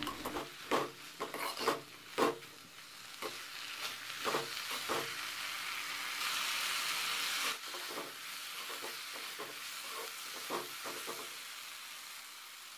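Steel spoon stirring and scraping sautéed onions, tomatoes and herbs around a metal kadai in repeated short strokes, over the sizzle of the frying vegetables. The sizzle rises for about a second and a half a little past the middle, then the stirring goes on more faintly.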